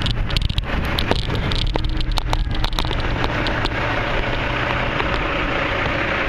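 Rush of wind on the microphone of a moving bicycle, with a run of sharp clicks and rattles over the first three seconds or so, then a steady rush.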